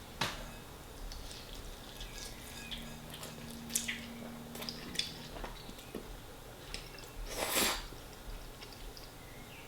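Quiet, wet mouth sounds of someone eating tomato spaghetti: scattered soft clicks of chewing, with one louder breathy sound about seven and a half seconds in.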